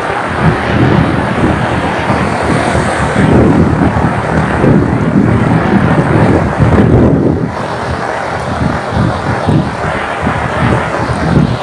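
Heavy rain falling on a paved road, a steady hiss, with a loud, uneven low rumble running under it.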